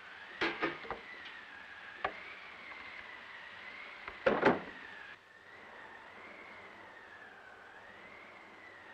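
Wind sound effect of a snowstorm: a thin whistle wavering slowly up and down. A few sharp wooden knocks in the first second, one more at about two seconds, and a loud double bang of a heavy wooden plank door a little before the middle.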